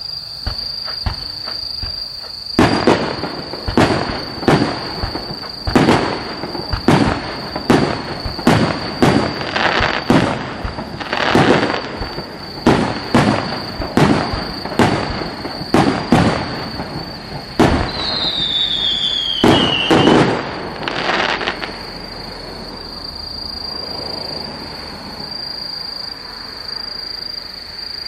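Fireworks display: a quick run of loud firework bangs, one or two a second for about twenty seconds, with a falling whistle shortly before the last bangs. Crickets keep up a steady high trill underneath.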